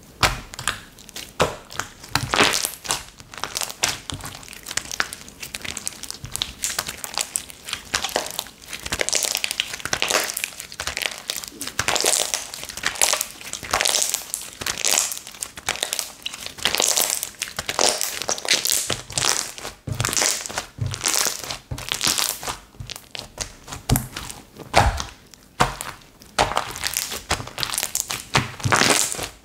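Slime being pressed and kneaded by hand, making dense, irregular crackling and popping clicks throughout.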